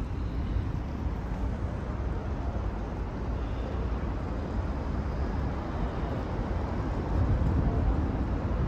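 Steady outdoor city background: distant traffic on the elevated expressway overhead, heard as an even low haze, with wind starting to buffet the microphone near the end.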